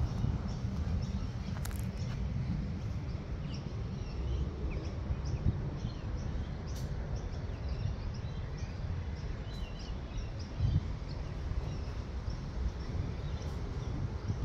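Outdoor background of many short bird chirps scattered over a steady low rumble.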